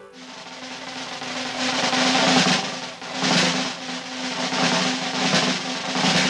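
Cartoon soundtrack music: a snare drum roll that swells and fades in waves over a held low note.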